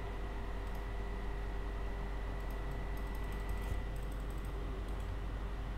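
Faint clicking and tapping of a computer mouse and keyboard, a cluster of clicks around the middle, over a steady low hum.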